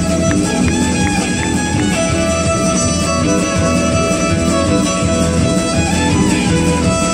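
Violin playing a melody live over a band's bass and drums, the violin sliding between notes about six seconds in.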